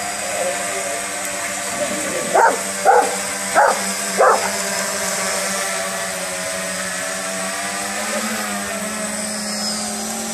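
A dog barking four times in quick succession over the steady whine of a DJI Phantom quadcopter's propellers. The quadcopter's hum dips and rises in pitch near the end as it changes speed.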